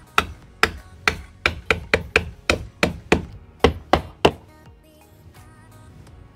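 Hammer driving pins into PVC fascia board: about a dozen sharp strikes, roughly three a second, that stop about four seconds in.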